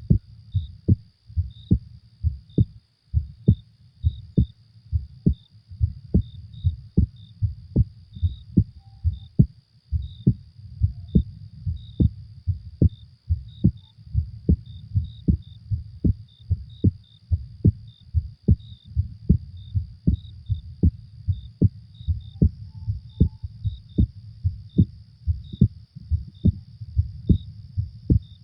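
Recorded human heartbeat, slow, regular low thumps about twice a second, over faint high chirping from a night-ambience sound layer.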